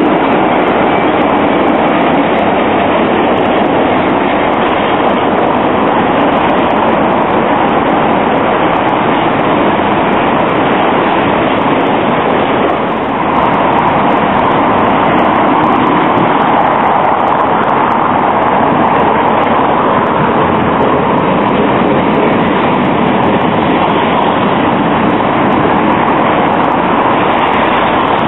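Valmet articulated trams running on street track amid city traffic: a loud, steady rumble and hiss with a brief dip about halfway through, as one tram pulls away close by and another runs in to the stop.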